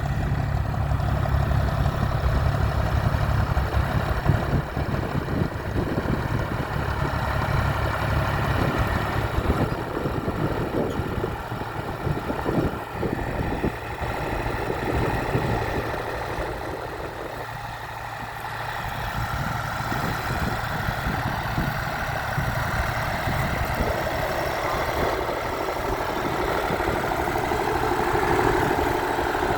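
Fiat 540 Special DT tractor's diesel engine running. Its low drone is strongest in the first few seconds, eases off somewhat around the middle, and builds again near the end.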